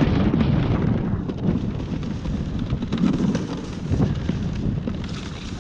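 A toboggan sliding fast down an iced slide: a loud, rough rushing and scraping with wind buffeting the microphone. The noise gradually fades as the toboggan slows.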